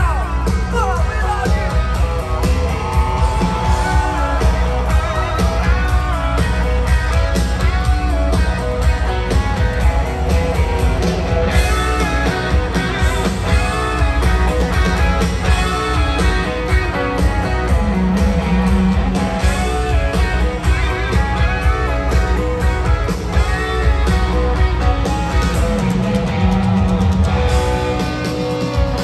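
Live country-rock band playing through a stadium sound system, heard from the crowd: electric guitars over drums and bass with a steady beat.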